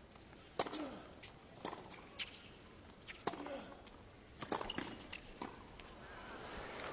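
Tennis ball being struck by rackets and bouncing on a hard court during a rally: sharp single pops about a second apart. Crowd noise begins to swell near the end.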